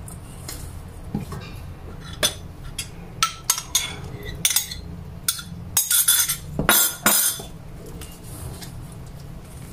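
Silicone spatula stirring thick waffle batter in a stainless steel mixing bowl: irregular clinks and short scrapes against the metal bowl, thickest in the middle and dying away near the end.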